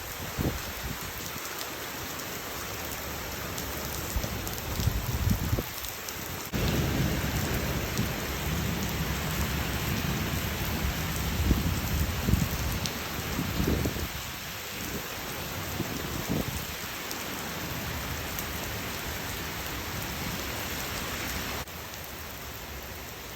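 Heavy rain falling steadily, with low rumbles of thunder. The rain jumps suddenly louder about six seconds in and drops back abruptly near the end.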